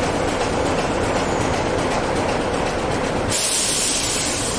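Diesel trains running at a platform: a Class 171 Turbostar diesel multiple unit drawing in beside an idling Class 25 diesel locomotive. About three seconds in, a loud hiss starts suddenly and takes over as the lower engine noise drops away.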